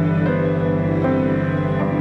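Background music: slow ambient music of sustained notes.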